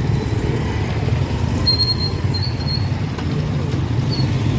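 Engines of small motorcycles and three-wheeled mototaxis running as they pass slowly along a dirt road, with a few short high-pitched squeaks about two seconds in.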